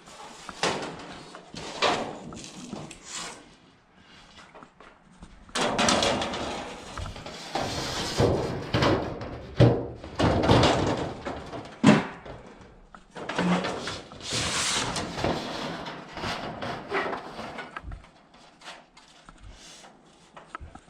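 Thin sheet steel clattering and banging as it is turned and worked on a sheet-metal brake, in irregular stretches with a few sharp bangs.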